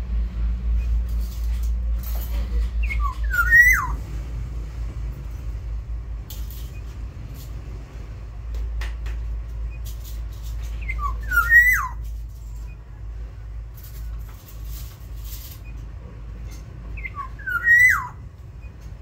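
Black-naped oriole singing a short fluty whistled phrase of gliding notes three times, several seconds apart, over a steady low rumble.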